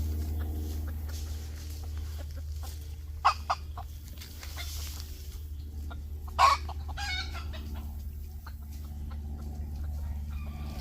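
Bantam Phoenix rooster clucking: two short calls about three seconds in, then a louder call about six and a half seconds in followed by a quick run of clucks, over a steady low hum.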